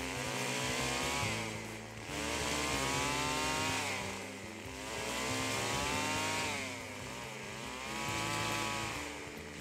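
Stihl two-stroke chainsaw cutting through brush and small limbs. The engine revs up and falls back about four times, its pitch rising and dropping with each squeeze of the throttle.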